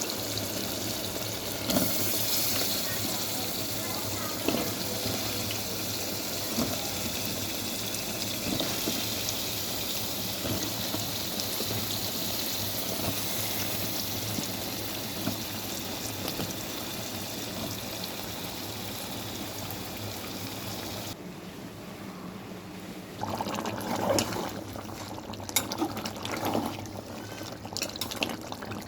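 Water running in a steady stream that stops about two-thirds of the way through, followed by irregular knocks and clatter.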